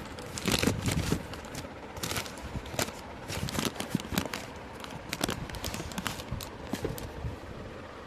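Paper and cardboard packaging being handled: irregular rustling with light knocks and taps.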